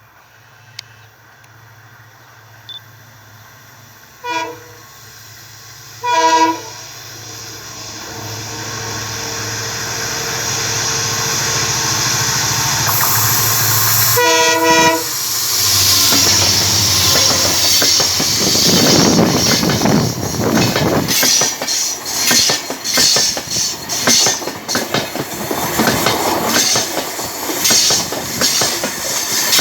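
WDP4D diesel-electric locomotive approaching out of a tunnel: its engine drone grows steadily louder while it sounds its multi-tone horn three times, a short toot about four seconds in, a louder blast around six seconds and another around fourteen seconds. From about sixteen seconds the coaches pass close by, their wheels clattering and rumbling loudly over the rail joints.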